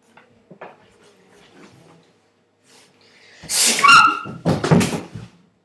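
Play-fight scuffle close to the microphone: a loud rush of rustling clothing and flailing arms with a short high yelp about four seconds in, followed by several quick thumps.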